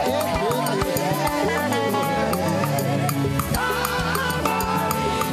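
Live gospel praise music: a group of singers singing an Igbo chorus into microphones over a band with a steady dance beat.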